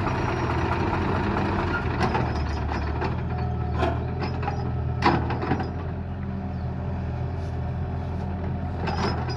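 Heavy diesel engine running steadily at low revs, with several sharp metal clanks and knocks over it, the loudest about five seconds in.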